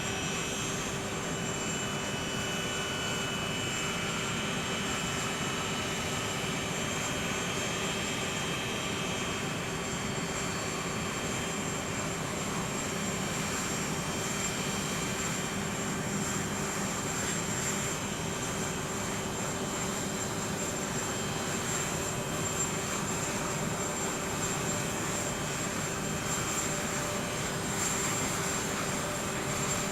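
Aircraft engines running steadily: a continuous rushing noise with a constant hum and a thin high whine held throughout.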